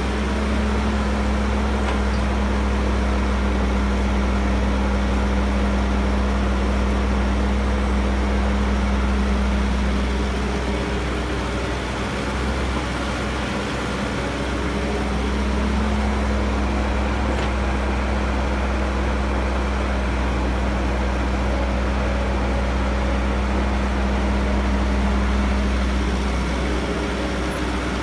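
Caterpillar E315B hydraulic excavator's diesel engine running steadily under load, growing louder for two long stretches and easing in between as it works through its digging and loading cycles.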